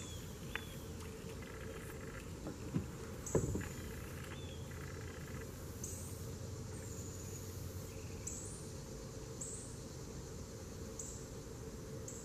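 Summer insects calling over a steady outdoor background, one giving a short high buzz about every second and a half. About three seconds in there are two short knocks.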